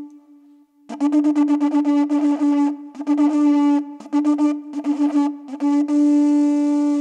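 Pinkillos, Andean wooden duct flutes, playing pinkillada music. About a second in, after a brief pause, they come in on a strong held note, broken by rapid flurries of quick notes and short breaks.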